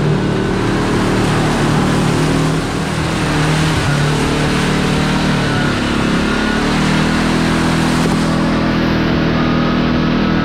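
Kawasaki Teryx KRX4 1000 side-by-side's parallel-twin engine running at trail speed, with a steady rush of tyre and trail noise. The engine note dips briefly about three seconds in, then picks up again a few seconds later.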